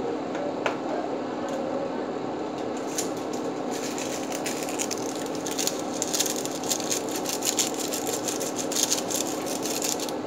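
Pan of galunggong simmering in adobo sauce, a steady hiss over a constant low hum. From about three seconds in comes dense crackling, thickest in the second half, as a plastic sachet is squeezed out over the pan.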